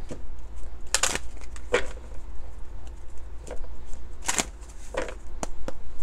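A deck of oracle cards being shuffled by hand: irregular papery slaps and riffles as the deck is split and pushed back together, about eight in all, the loudest about a second in and just after four seconds.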